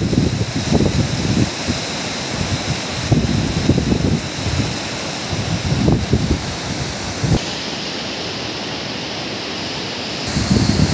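Fast whitewater mountain river rushing over boulders, a steady dense rush of water. Gusts of wind buffet the microphone now and then.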